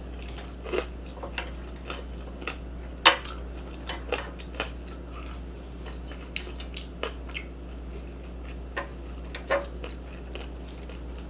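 A person chewing and eating ramen and dumplings, with scattered short wet mouth clicks and smacks, the sharpest about three seconds in. A steady low hum runs underneath.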